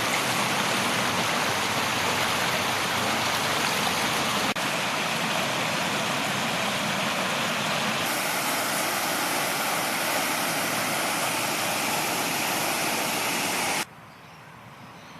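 Floodwater rushing in a swollen river: a steady, loud noise of fast-flowing water. A short cut breaks it about four and a half seconds in, and near the end it drops abruptly to a much quieter flow.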